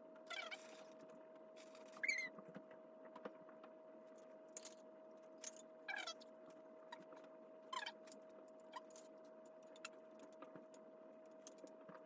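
Faint scattered clicks and rattles of small parts being handled while a kit is assembled, with a few brief squeaks, the loudest about two seconds in, over a steady faint hum.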